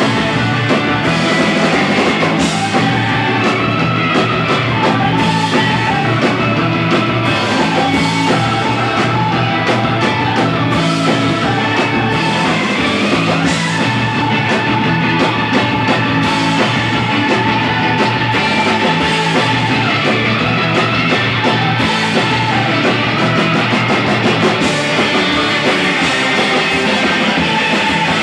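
Surf rock band playing live with electric guitars, bass and drums, a loud, steady full-band sound without a break.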